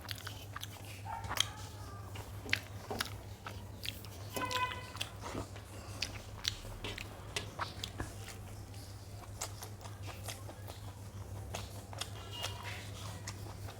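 Close-miked eating of a rice, dal and omelette meal: chewing with many short, irregular mouth clicks, over a steady low hum.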